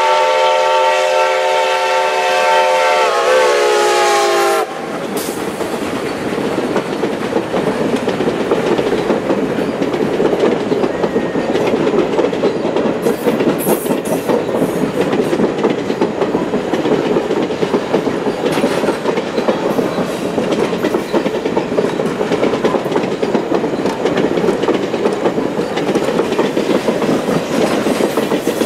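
Reading & Northern T1 2102 4-8-4 steam locomotive's chime whistle sounding a long blast that dips slightly in pitch and cuts off about four and a half seconds in. Then the train's passenger cars rolling past, steady wheel noise with clickety-clack over the rail joints.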